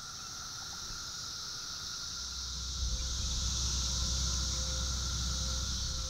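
Chorus of Brood III periodical cicadas (Magicicada), a steady high-pitched drone with a fainter steady tone beneath it. A low rumble joins about two seconds in.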